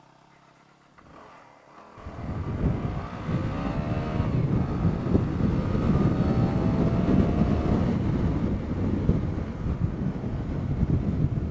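Yamaha WR250R's single-cylinder four-stroke engine pulling away about two seconds in and accelerating, its note rising through the gears twice, under a loud rumble of wind and road noise.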